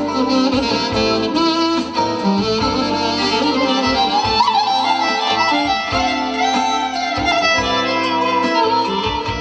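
Instrumental passage of band music with a steady beat and a melody line, no singing.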